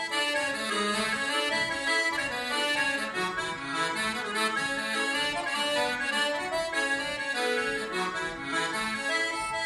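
Solo accordion playing a traditional tune: a quick run of melody notes over bass notes, going on without a break.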